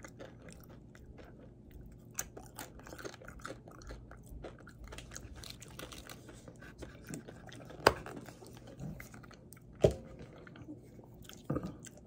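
A person chewing and crunching a tortilla chip dipped in guacamole, with many small crunches and mouth clicks. Two sharper knocks stand out in the second half, about two seconds apart.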